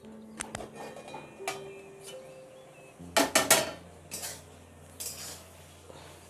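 Metal clinks of a steel plate lid on a kadai, each light tap leaving a short ring, then a louder clatter of a spatula against the pan a little past the middle.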